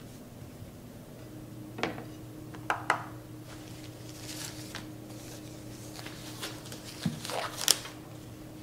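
Rubber spatula knocking and scraping against a glass mixing bowl while crumbly cookie dough is mixed, with a few sharp knocks about two and three seconds in. Later comes rustling and a sharp snap near the end as a thin disposable glove is pulled on. A low steady hum runs underneath.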